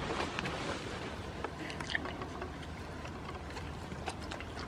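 Steady hiss of rain, with scattered light ticks and taps.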